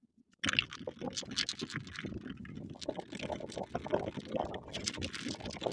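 Irregular clicking and clattering of objects being handled, starting about half a second in after a short silence.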